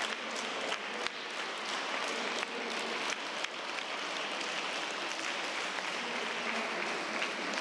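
Steady applause from a group of children clapping their hands: a dense, even patter of many small claps.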